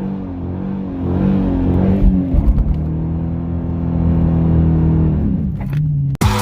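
Car engine revving: the pitch climbs and falls a few times, holds steady for a couple of seconds, then drops back and cuts off abruptly near the end.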